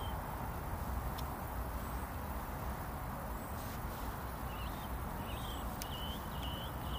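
A small bird chirping in short, repeated calls, most of them in the second half, over a steady low rumble, with a few faint clicks.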